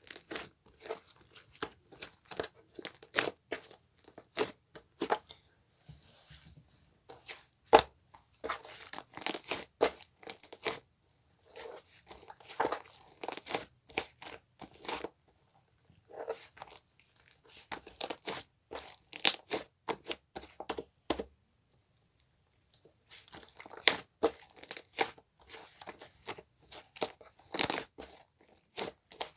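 Irregular crinkling and tearing sounds with many sharp clicks and taps, like paper or plastic being handled close by, pausing briefly about three quarters of the way through.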